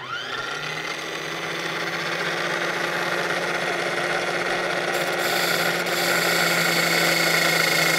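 Small electric knife-sharpener stone grinding wheel spinning up and then running steadily, used dry to grind the end of a rotary engine side seal for clearance. The grinding hiss grows stronger about five seconds in.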